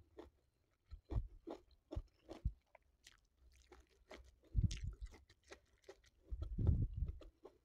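Close-miked chewing of a mouthful of rice and stir-fried vegetables: wet mouth clicks and smacks throughout, with heavier bouts of chewing about halfway through and a longer one near the end.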